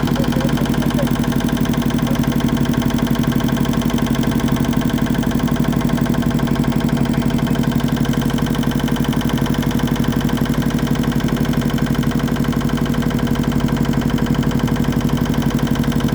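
Motorboat engine running steadily with a fast, even chugging.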